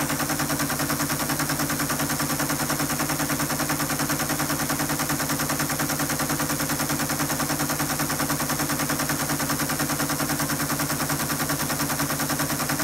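ASR-33 Teletype paper tape reader clattering in a fast, even rhythm as it reads punched paper tape, loading Microsoft BASIC into the computer, over the steady hum of the Teletype's motor.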